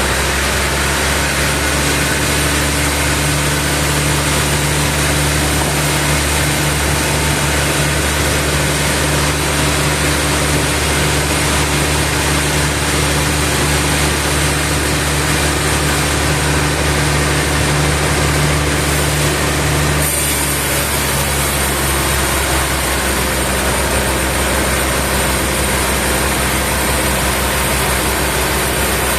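Sawmill machinery engine running steadily, with a continuous low hum. Its sound shifts abruptly about twenty seconds in.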